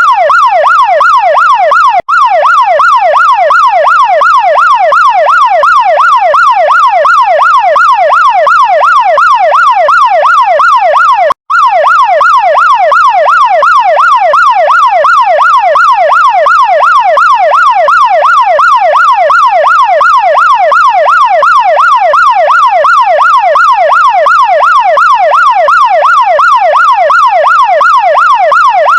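Chinese fire truck electronic siren in a fast yelp, its pitch sweeping up and down about four times a second without pause. The siren cuts out for an instant twice.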